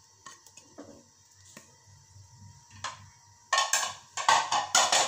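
Kitchen dish handling: a few light clicks, then, about three and a half seconds in, a quick run of four or five loud scraping clatters of a plate and utensils over an aluminium pressure cooker.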